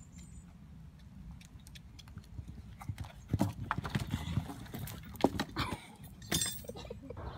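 Horse's hooves striking a sand arena, a run of knocks that grows louder from about three seconds in as it comes at a jump. Near the end come the loudest knocks and thuds as the horse stops short at the fence, the poles come down and the rider falls.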